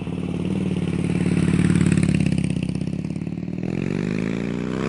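Motorcycle engine running with a fast, even pulsing beat, then revving with the pitch rising near the end.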